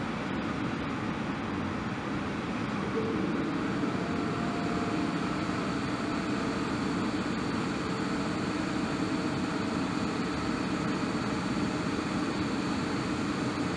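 ET41 two-unit electric locomotive standing powered up under the overhead wire with its auxiliary machinery running: a steady whirring hum that grows a little louder about three seconds in. It is being tested after a main overhaul and modernisation.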